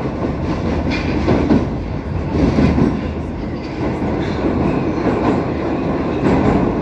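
Metro train running at speed through a tunnel, heard from inside the car: a steady loud rumble of wheels on rail, with irregular knocks from the track.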